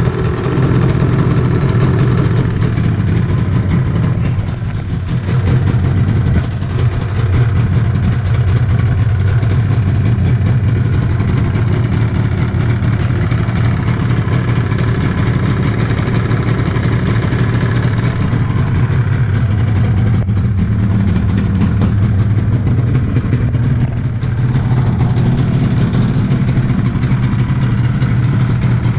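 Yamaha RD350's two-stroke parallel-twin engine running at a steady idle, with a few brief dips in level.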